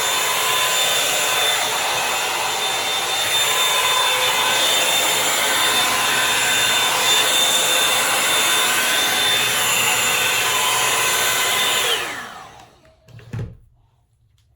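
Revlon One Step Volumizer hot-air brush dryer running steadily with a high whine over the rush of air, then switched off about twelve seconds in, its whine falling as the motor spins down. A single knock follows a second later.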